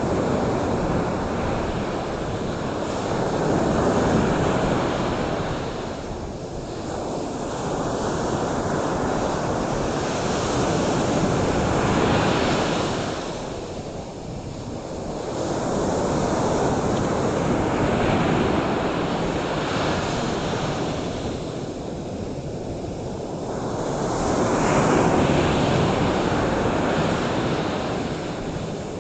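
Ocean surf: waves breaking and washing ashore, the rush of water swelling and falling back every several seconds.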